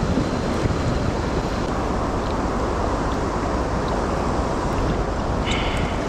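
Steady rush of fast-flowing river water with wind buffeting the microphone. A short high chirp sounds near the end.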